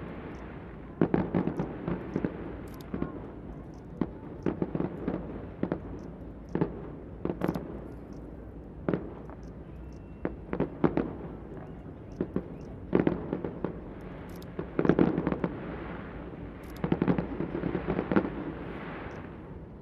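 Aerial fireworks going off in a continuous display: bursts of sharp bangs come in clusters every second or so, each trailing off in a rumbling echo, with heavier volleys about fifteen and eighteen seconds in.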